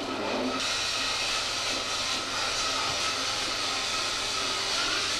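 Loud, steady hiss like static or noise from an audio feed, with no voices in it; it turns brighter and hissier about half a second in.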